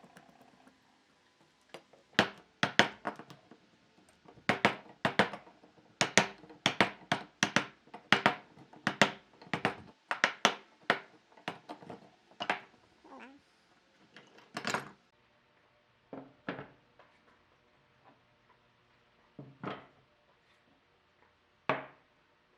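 An irregular run of sharp knocks and clacks from hard objects striking one another, close together for the first dozen seconds and then only a few spaced knocks.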